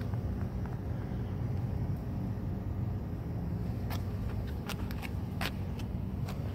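A steady low engine-like hum throughout. From about four seconds in come several short scuffs and crunches of footsteps on gritty concrete.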